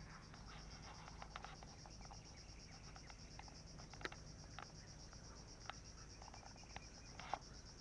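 Faint, steady high-pitched chirring of insects, pulsing fast and even, with a few scattered soft clicks, the clearest about four seconds in.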